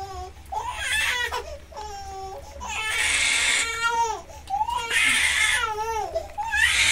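A baby crying in repeated wailing bouts, each about a second long, with the pitch bending up and down.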